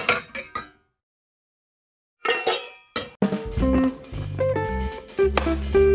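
A short percussive intro sting of clinking, ringing hits, a pause of silence, another ringing hit, then background music with held bass notes and a melody starting about three seconds in.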